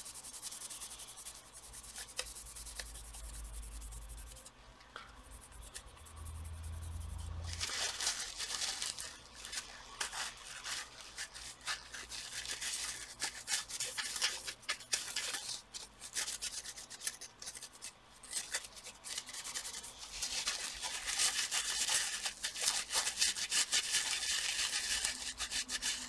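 Tissue rubbing and scrubbing old dried thermal paste off a laptop's copper heatsink contact plates: a dry, scratchy wiping in many short strokes, faint at first and growing busier and louder about a third of the way in.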